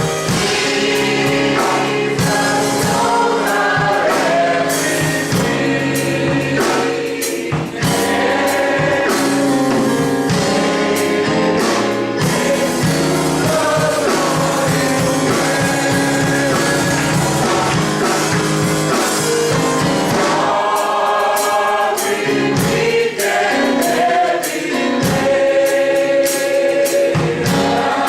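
A gospel choir singing with instrumental accompaniment and a steady beat.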